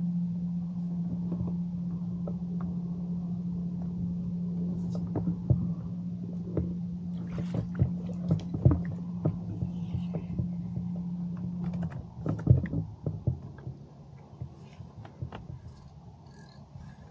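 A small boat motor running with a steady low hum that stops about twelve seconds in, with scattered knocks and clicks in the boat, the loudest just after the motor stops.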